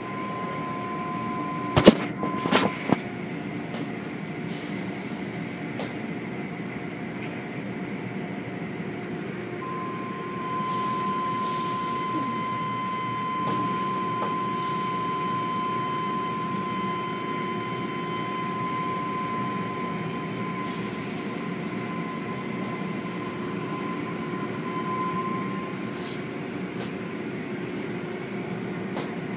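Tunnel car wash machinery running: a steady mechanical hum with a thin whine and the hiss of water spraying, which grows louder about ten seconds in. A few sharp knocks come about two seconds in.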